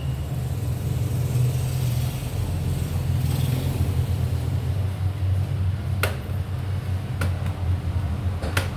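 A steady low rumble throughout, with a few sharp clicks in the second half.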